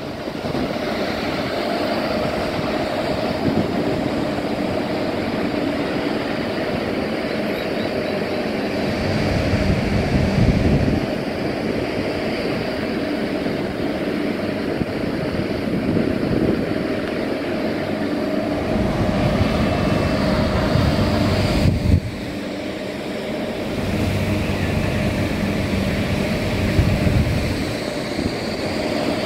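Steady city traffic noise rising from the roads below, with a constant hum underneath and wind buffeting the microphone in several gusts.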